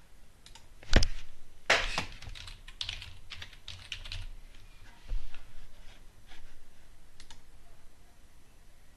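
Computer keyboard being typed on: irregular keystrokes in short bursts, the loudest about a second in and a quick run of keys around two seconds in.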